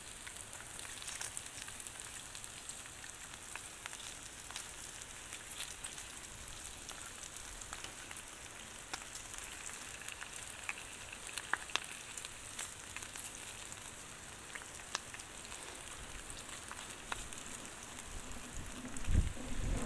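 Bacon, sausage patties and shredded hash browns frying on a flat-top gas griddle: a steady sizzle with scattered crackles and pops. A few low bumps near the end.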